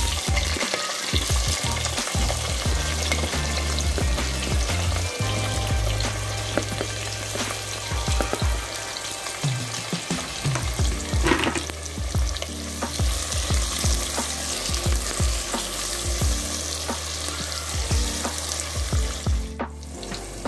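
Sliced onions sizzling and crackling in hot oil with whole spices in a pressure cooker, just after being tipped in.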